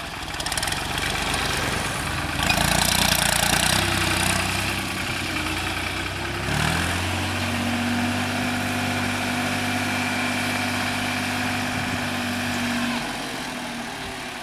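New Holland TT55 tractor's diesel engine running, with a louder rush of engine noise about two seconds in. After a short rise in pitch it settles into a steady drone, which drops away near the end as the tractor drives off.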